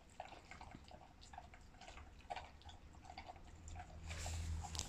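Pets eating from their bowls: faint, scattered small clicks and crunches of food being chewed and picked up, with a louder, noisier stretch near the end.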